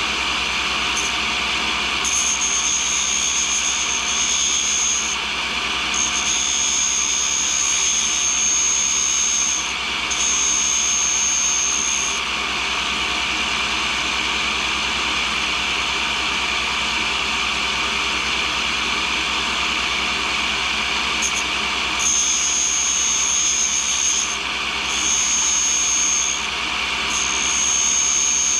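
Cincinnati No. 2 tool and cutter grinder running steadily while a brazed carbide tool is hand-ground against the wheel. A high thin whine comes and goes in passes of two to four seconds, several in the first twelve seconds and three more near the end, as the tool is pressed to the wheel and lifted off.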